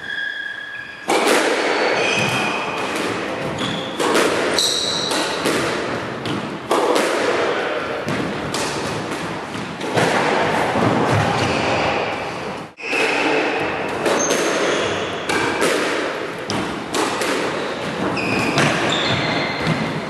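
Squash ball cracking off rackets and the walls of a squash court, sharp hits every second or two that echo heavily around the enclosed court. Short high squeaks from players' shoes on the wooden floor come between the shots.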